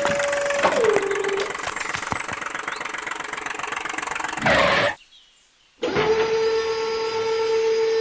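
Small electric motor of a toy tractor and tipping trailer whining steadily, its pitch dropping as it winds down under a second in, followed by a gear rattle. It cuts out almost to silence for under a second about five seconds in, then starts again and whines steadily.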